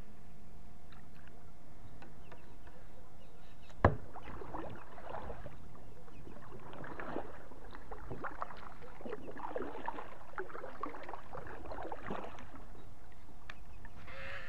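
Kayak paddle strokes: water splashing and dripping off the blades in an irregular run for about eight seconds. The run starts just after a single sharp knock about four seconds in.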